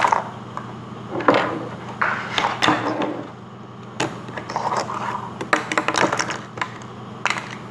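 Hollow plastic surprise-egg halves and a plastic toy box being handled on a table: irregular clicks, knocks and scrapes, with sharp knocks about a second in and again near the middle.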